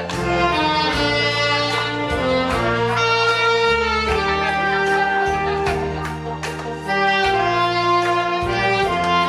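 Saxophone playing a slow melody over a backing accompaniment with held bass notes and a steady beat.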